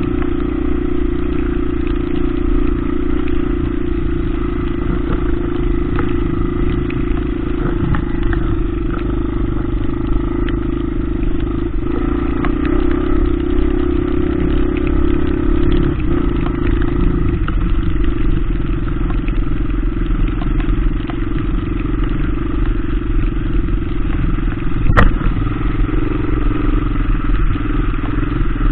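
Small single-cylinder four-stroke dual-sport motorcycle engine running steadily under way over muddy ground, heard from the bike itself, its note easing slightly about two-thirds of the way through. A single sharp knock near the end.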